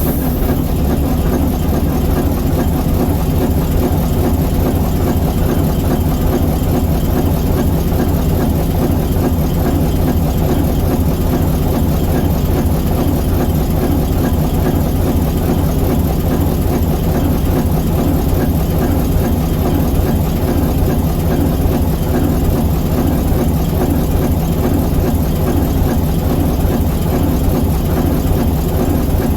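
ALCO S4 locomotive's 539T turbocharged inline-six diesel prime mover running steadily, a dense low firing beat that holds an even speed and level.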